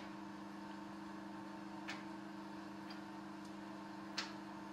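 Machined metal vise jaws set down on a milling machine's table: a few light metal clinks, spaced about a second or two apart, over a steady low hum.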